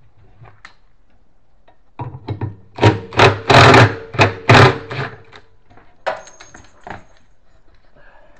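A rapid run of loud knocks or bangs lasting about three seconds, starting about two seconds in, followed by a few fainter knocks.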